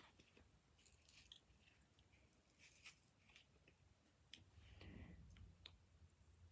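Near silence with faint, scattered crackles and clicks from slime being handled, and a soft low rumble about five seconds in.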